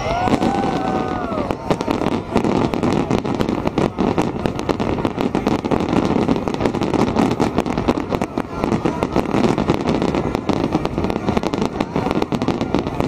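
Massed aerial fireworks shells bursting in a dense, continuous barrage, many bangs and crackles overlapping with no gaps.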